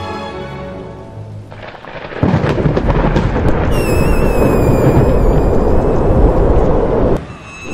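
Loud rushing wind of a fall through the air, with a wavering whistle over it from a little before halfway, all cutting off suddenly near the end. In the first second the last notes of music fade out.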